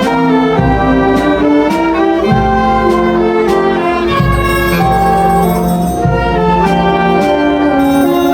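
Filarmônica wind band playing a piece: held chords with notes that move every half second or so, at a steady level.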